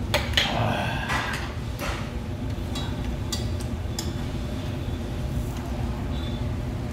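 Metal spoon and chopsticks clinking against small dishes, several light clicks in the first two seconds and a few more a couple of seconds later, over a steady low background hum.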